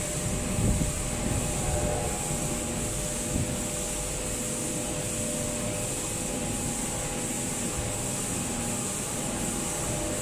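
Steady running hum of an LED pick-and-place machine, with hiss and a few faint held tones, and a few soft bumps in the first few seconds.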